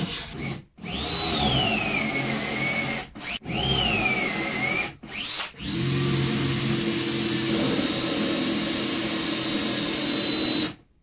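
Cordless drill boring counterbore holes into wood in four runs. The first two last about two seconds each, their whine rising and then sagging as the bit bites. Then comes a brief blip, followed by a steady run of about five seconds that stops just before the end.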